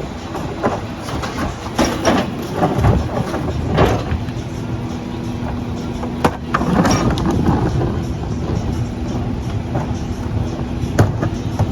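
CNG-powered rear loader garbage truck running steadily, with a few sharp metallic clanks, the loudest about six seconds in and another near the end.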